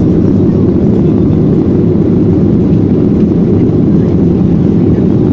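Steady cabin noise of a Boeing 737-800 climbing after takeoff: its CFM56 jet engines at climb power and the rush of air over the fuselage, heard through the cabin as a dense, even low rumble.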